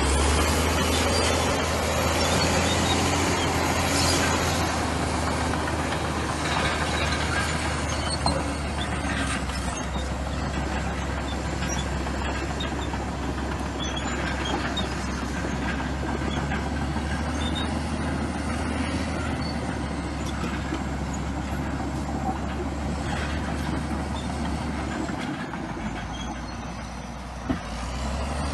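Komatsu bulldozer's diesel engine running steadily under work, with scattered small clicks and clanks. The engine sound dips briefly near the end, followed by a single sharp knock.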